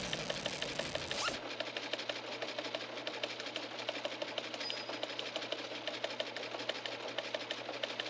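Rapid, even mechanical clattering, many ticks a second, with a short whooshing rush in the first second or so.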